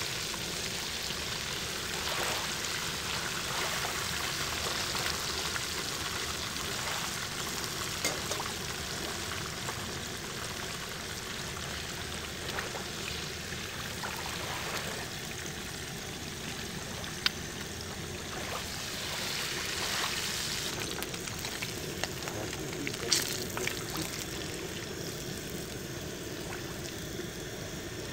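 Fish frying in a pan of hot oil on a portable gas stove, a steady sizzle, with a few sharp clinks of a metal spatula against the pan as the fried fish are lifted out.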